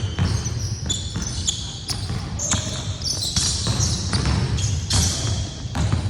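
A basketball bouncing repeatedly on a gym court during play, with many short, high squeaks from sneakers on the floor.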